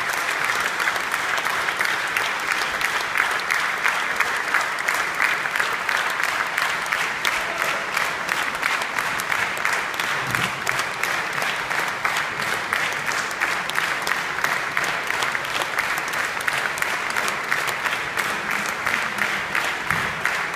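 Audience in a concert hall applauding steadily.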